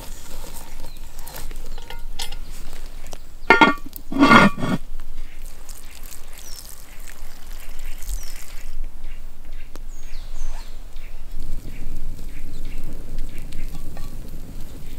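Water poured into a hot cast-iron Dutch oven of seared veal shanks, with two short loud sounds about three and a half and four seconds in. A campfire burns steadily in the last few seconds.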